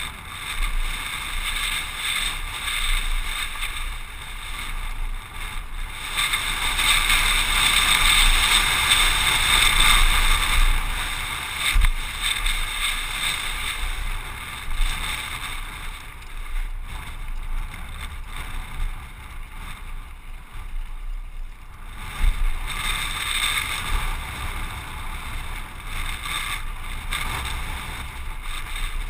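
Wind rushing over a helmet-mounted camera and mountain bike tyres rumbling over a rocky dirt trail during a fast descent, swelling louder about six to eleven seconds in, with a couple of sharp knocks.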